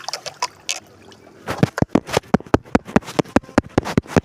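A fast, even run of sharp knocks, about eight a second, starting about a second and a half in, with faint scattered clicks before it.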